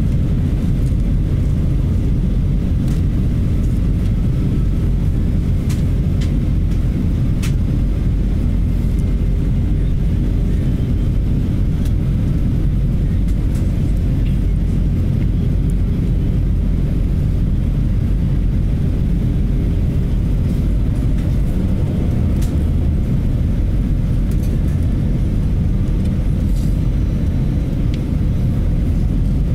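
Steady low rumble of airflow and jet engines inside an Airbus A320 cabin on approach. A faint steady tone within it stops about two-thirds of the way through.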